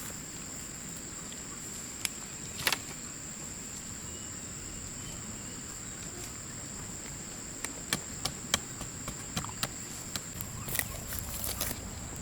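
Insects droning at a steady high pitch, with scattered sharp clicks and knocks, most of them in the second half.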